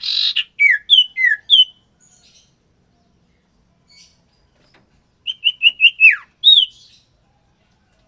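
Common iora calling in two bursts of short, clear, downward-slurred whistles. The first burst opens with a rough note and runs for under two seconds; the second, about five seconds in, is a quick run of about five notes ending in a longer falling whistle.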